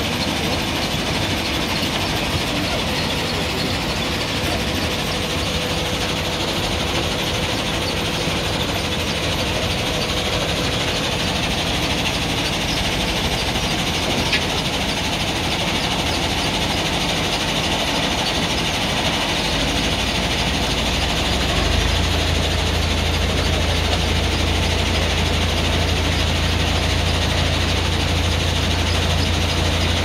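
JCB backhoe loader's diesel engine running steadily under load while the backhoe digs sand. There is a single sharp click about halfway through, and a deeper low drone sets in about two-thirds of the way through.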